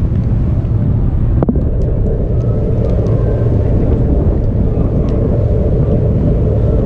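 Ferryboat's engines running with a steady low drone.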